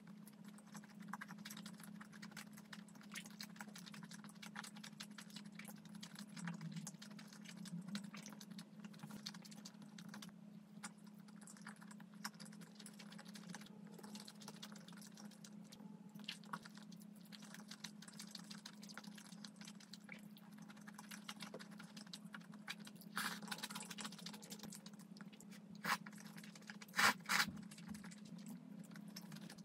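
Close-up eating sounds: soft chewing and small clicks of chopsticks, with louder slurps of bibim-myeon noodles near the end. A steady low hum runs underneath.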